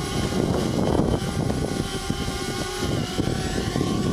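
DJI Spark quadcopter's motors and propellers whining steadily as it hovers low; one motor is newly replaced, and the drone is flying normally on it.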